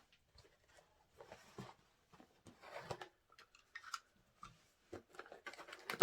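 A shipping box and its packaging being handled and opened by hand: scattered rustling, scraping and small clicks, with a sharper knock at the very end.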